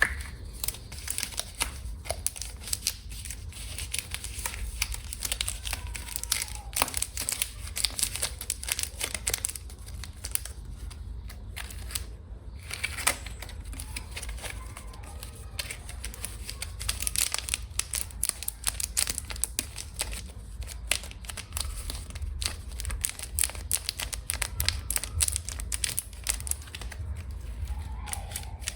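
Packaging being unwrapped by hand: dense crinkling and tearing with many quick little clicks throughout.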